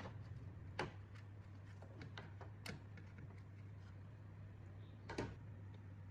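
A few light, sharp taps and clicks over a steady low hum, with the two loudest about a second in and near the end.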